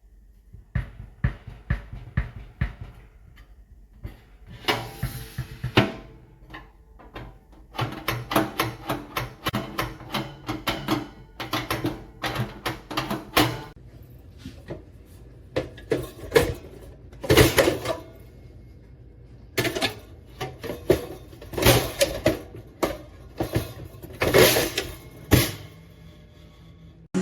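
Music led by a drum kit, with snare and bass drum hits coming in clusters.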